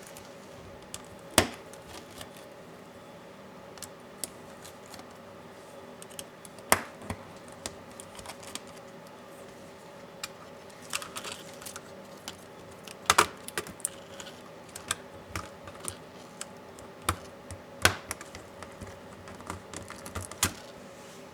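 Irregular small clicks and taps of a laptop's plastic and metal parts and tools being handled during disassembly, with a few sharper, louder clicks.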